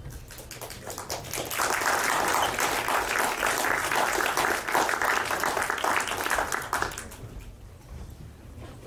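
Audience applauding. The clapping swells over the first second or two, holds, and dies away about seven seconds in.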